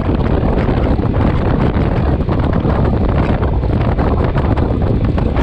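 Wind buffeting the microphone of a moving motorcycle: a loud, steady rush with the bike's engine and road noise underneath.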